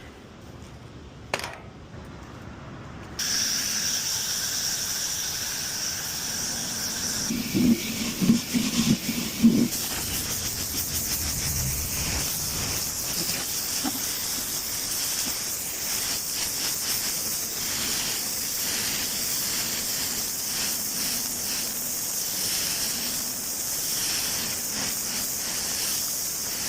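Pressure washer spraying a grease-stained patio: a steady hiss of the high-pressure jet starts about three seconds in and runs on, with a few louder, uneven bursts a few seconds later.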